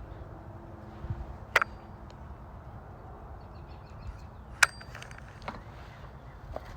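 Two sharp clicks about three seconds apart, with a few fainter ticks, over a steady low background noise.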